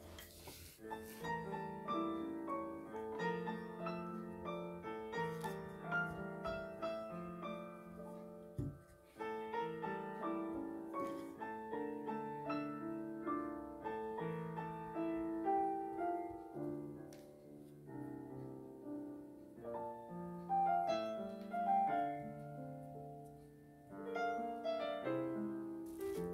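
Background piano music: a gentle melody of separate notes over low chords.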